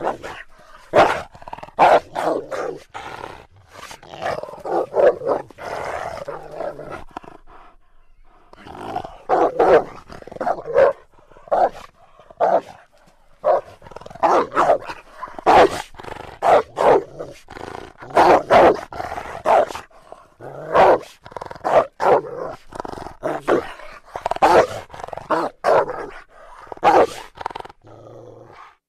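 Cartoon wolf growls, snarls and barks edited one after another: many short calls in quick succession, with a few brief pauses.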